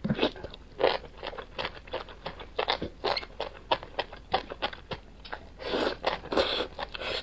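Close-miked biting and chewing of enoki mushrooms in chili oil: a quick run of short, wet bite and chew sounds, several a second. About six seconds in comes a longer, louder slurp as the strands are drawn into the mouth.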